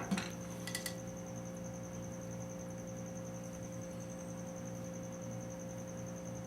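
Steady electrical hum with a thin, high-pitched whine over it, and a few light clicks in the first second.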